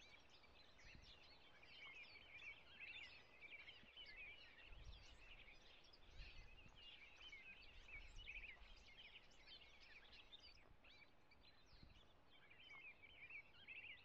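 Faint chorus of many small birds chirping at once, dense and continuous.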